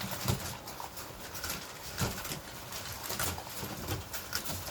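A litter of puppies eating dry kibble from a shared pan: a dense, irregular patter of crunching, clicks and small knocks.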